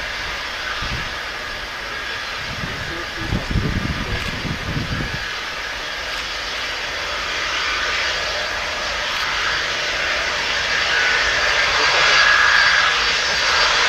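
Twin jet engines of a Boeing 767-200ER running at low thrust as the airliner rolls along the runway: a steady hissing whine that grows louder near the end. A low, irregular rumble comes in about three to five seconds in.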